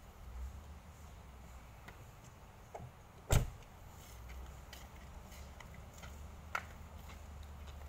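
A car door on a BMW being shut: one solid thump about three seconds in, with a lighter click a few seconds later, over a low steady rumble.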